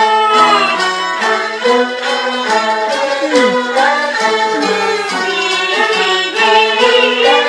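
Peking opera music: a bowed jinghu fiddle plays a continuous melody of stepping and sliding notes.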